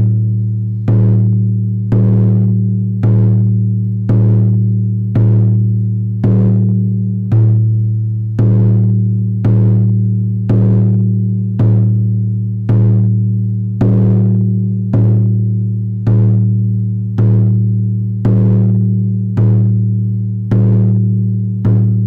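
Background music: a deep, pitched drum beat struck steadily about once a second. Each stroke rings on as a low hum until the next.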